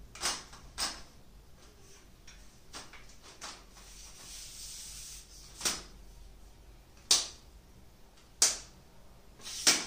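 Leg locks of a Digitek DTR 550 LW tripod being snapped open and shut while the leg sections are pulled out to full length. There are six sharp clicks, spaced unevenly: two close together at the start, the rest over the second half, with faint sliding in between.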